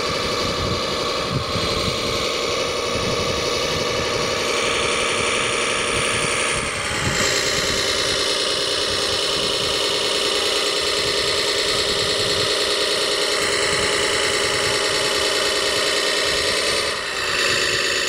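Drive motors and gearboxes of a radio-controlled tracked dump truck running as it crawls over gravel, a steady mechanical whine. The pitch pattern changes abruptly about seven seconds in and again near the end.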